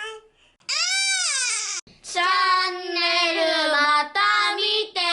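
A child's high-pitched voice making drawn-out, sing-song vocal sounds in several phrases, each one rising and falling in pitch.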